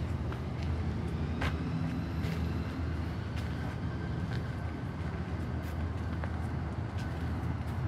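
Steady low rumble of distant city traffic, with a scattering of soft footsteps on a gravel path.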